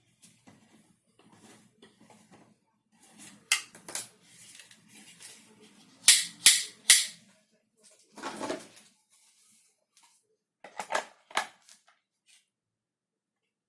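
Hard plastic parts of a 3D-printed airsoft rifle kit being handled and fitted together: scattered sharp clicks and knocks, loudest in a quick run of three about halfway through, followed by a short rasp and a few more clicks.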